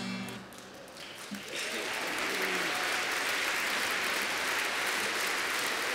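A strummed acoustic guitar stops right at the start, then a hall audience's applause swells up about a second and a half in and holds steady.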